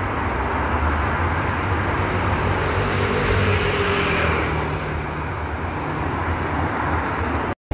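Road traffic on a city boulevard: a steady noise of cars with a low rumble, swelling around three to four seconds in as a car drives past.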